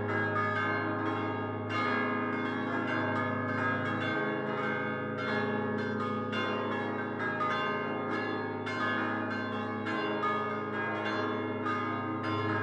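A set of five fixed church bells cast by Prospero Barigozzi in 1928 (Do4, La♭3, Mi♭3, Do3 and a 3.5-ton La♭2) rung in a full solemn peal. Hand-swung clappers strike the stationary bells in quick, overlapping strokes, and the deepest bell's low note drops out and comes back during the peal.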